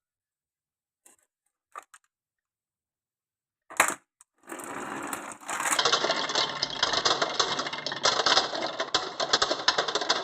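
Glass marbles clicking and rolling down a wooden marble run: a few light clicks, a sharp knock about four seconds in, then a dense, continuous clatter of many marbles running along the track from about six seconds on.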